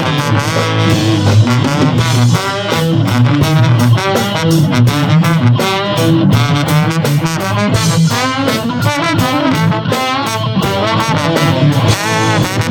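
Live rock band playing an instrumental passage between sung lines: electric guitar over drums.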